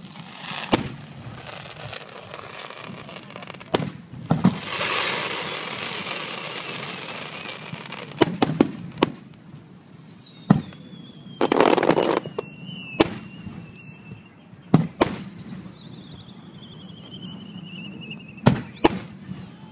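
Aerial firework shells bursting: about a dozen sharp bangs, several in quick pairs, with a long crackling hiss after the bursts about four seconds in and a shorter one near the middle.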